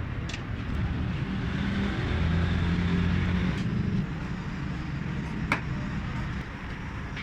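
A motor vehicle engine running steadily, louder for a couple of seconds about two seconds in, with a single sharp click about five and a half seconds in.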